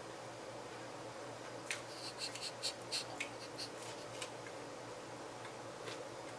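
A person eating sandwich bread: a run of about a dozen small sharp clicks and crackles from tearing and chewing the bread, lasting about two and a half seconds, over a steady low hum.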